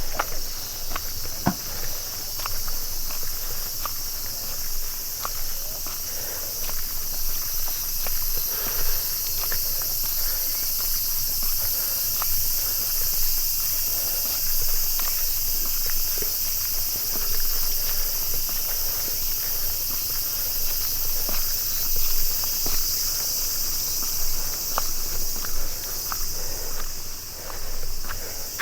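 Footsteps of a person walking steadily along a path, over a steady high chirring of insects such as crickets.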